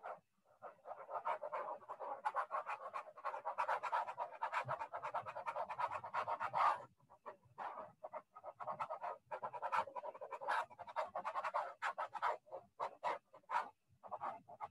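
Pen stylus scrubbing rapidly back and forth on a drawing tablet's surface to erase handwriting: a run of quick scratchy rubbing strokes, with a short break about seven seconds in.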